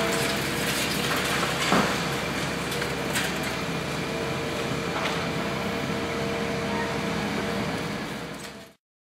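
Demolition work with an excavator-mounted Atlas Copco CC 1700 combi cutter crushing a concrete building: steady hydraulic machine noise with a constant hum, broken by a few sharp cracks of concrete and debris. The sound cuts off suddenly near the end.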